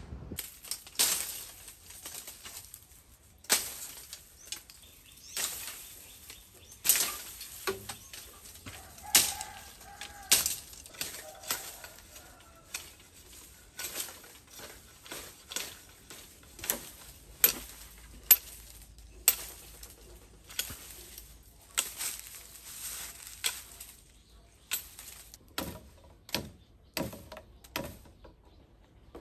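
Machete blade chopping a thin bamboo stick: a string of sharp, irregular cracks every second or two, coming closer together in the second half.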